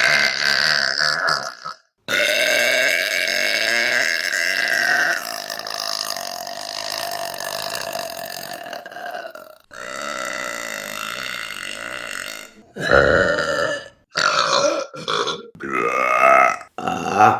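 A run of women burping. A short burp comes first, then one very long, steady burp lasting about seven seconds, then another long burp of a few seconds. Several short, loud burps follow in quick succession near the end.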